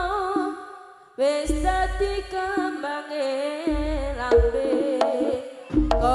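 Live Javanese jaranan ensemble music: a wavering melody over drums with deep low booms. The music fades out about half a second in and comes back abruptly just after a second.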